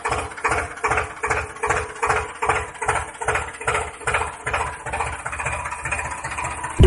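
Small motor of a mini DIY tractor running steadily, with an even chugging rhythm of about three beats a second.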